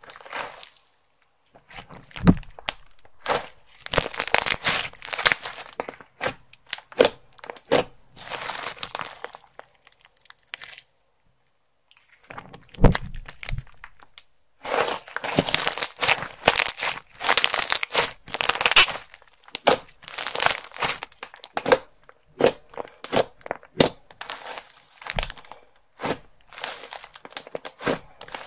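Clear slime with makeup and glitter mixed in being squished and stretched by hand: irregular sticky clicks, crackles and pops in clusters, with a couple of brief pauses.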